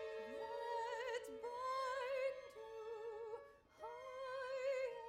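Soprano singing long notes with wide vibrato over sustained bowed strings of a small string orchestra. The voice and accompaniment break off briefly about three and a half seconds in, then the singing resumes.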